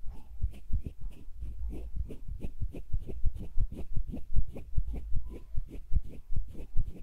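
ASMR hand sounds: hands moving and rubbing right up against the microphone, giving a run of soft low thuds with a light skin rustle, about three to four a second.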